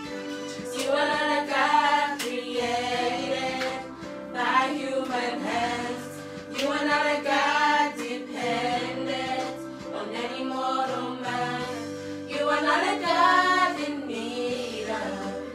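Voices singing a worship song over steady, held instrumental accompaniment.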